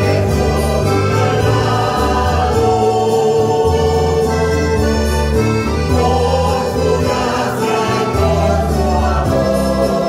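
Church choir singing a Spanish-language hymn together, accompanied by acoustic guitars and an electronic keyboard.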